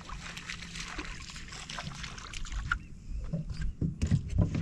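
Water splashing and slapping around a small boat as a hooked fish is brought in close, crackly at first, then a run of low thuds in the last second and a half.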